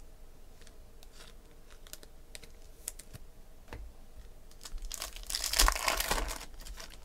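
A few light clicks and taps of cards being handled, then a foil trading-card pack wrapper crinkling and tearing open for about two seconds near the end.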